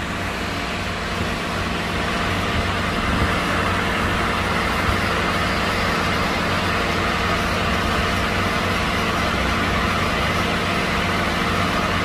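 Steady hum of running machinery with an airy rush over it, growing slightly louder about two seconds in.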